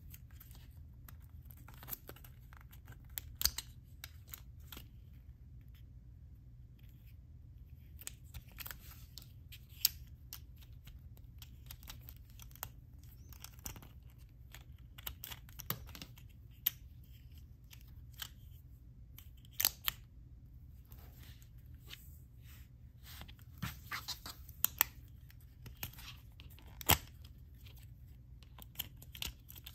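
Plastic kids' Spider-Man light-up watch being handled: scattered, irregular clicks and taps of hard plastic as the strap is fastened through its buckle and the flip-up cover is pressed, with light rustling between them.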